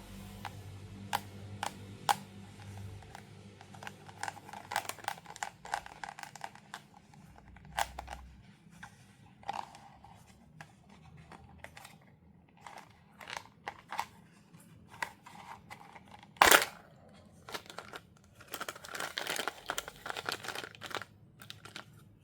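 Doll packaging being opened by hand: plastic and cardboard crinkling and tearing, with many scattered clicks and taps. A single sharp snap, the loudest sound, comes about two-thirds of the way through, followed by a longer stretch of crinkling near the end.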